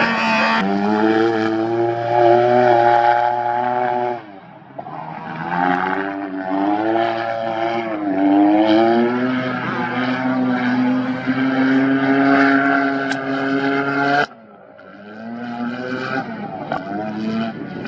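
Off-road race vehicle engines running hard, the pitch rising and falling with revs and gear changes. The engine sound comes in two loud stretches with a dip about four seconds in, then cuts off suddenly about fourteen seconds in, leaving a fainter engine.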